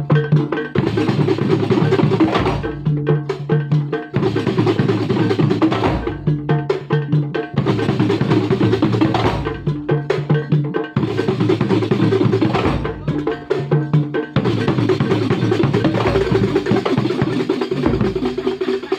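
Kuntulan percussion ensemble playing a fast, driving rhythm on frame drums and bass drum, stopping abruptly at the very end.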